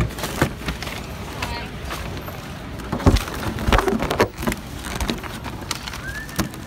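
Camera handling noise: irregular knocks, clicks and rustling as the camera is moved about, with the loudest knocks about three to four seconds in.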